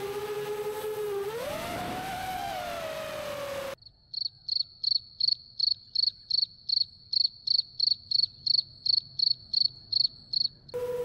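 FPV quadcopter motors whining, the pitch dropping and rising with the throttle. After an abrupt cut comes a steady run of short, high chirps, about three a second, which break off at a second cut back to the motors.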